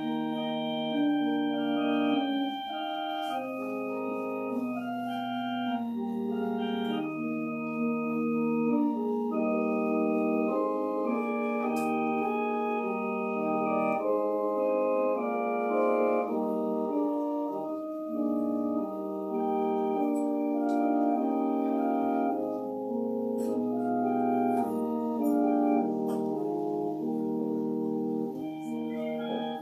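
Organ playing a slow piece in held chords, each note sustained at an even level until the next chord change.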